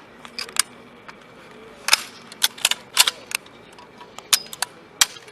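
Firearm trigger and action clicking: about a dozen sharp, irregular mechanical clicks, some in quick pairs or runs, as the gun is dry-fired and worked.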